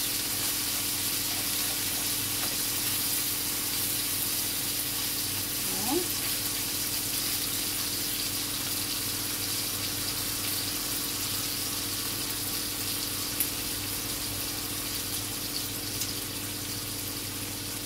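Chicken pieces sizzling steadily in olive oil in a frying pan as they brown, with a couple of light clicks of a fork against the pan. A steady hum from a running fan oven and washing machine lies underneath.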